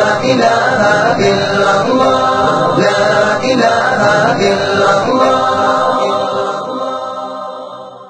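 Islamic devotional nasheed sung a cappella: layered voices chanting a choral line with no instruments, fading out over the last two seconds.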